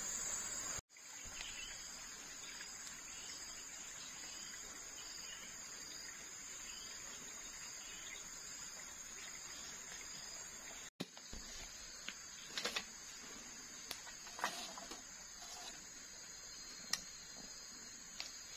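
Steady high-pitched chirring of insects in the forest, with a few short sharp knocks and taps in the second half.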